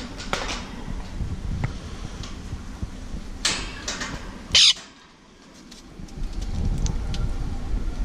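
Stainless steel seed bowl knocking and scraping against the wire cage bars as it is fitted into its holder, with scattered clicks and one loud, sharp clank about four and a half seconds in.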